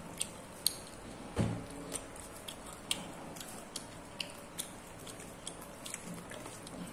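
Close-up eating sounds of fried duck being eaten by hand: chewing and scattered small irregular clicks and crackles as fingers pick at the food on a paper-covered table, with a soft thump about a second and a half in.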